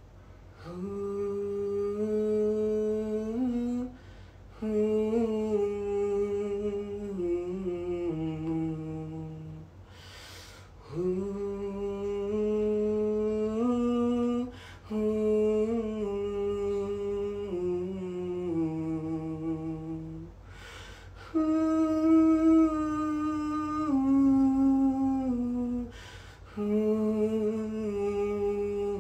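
A man's voice singing a slow, wordless melody in held notes, in phrases a few seconds long with breaths between them. He is trying out a simple melody freely, with no beat or metronome.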